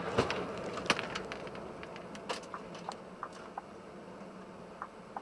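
Road and engine noise heard from inside a moving vehicle, fading gradually as it brakes and slows, with a scatter of sharp clicks and knocks, the loudest in the first second and a half.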